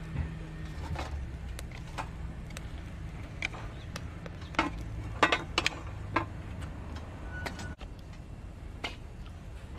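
Twig fire burning in a small folding metal wood stove: scattered sharp crackles and pops, a quick cluster of them around the middle, with a few light clinks as sticks are pushed in against the metal. A low steady hum runs underneath.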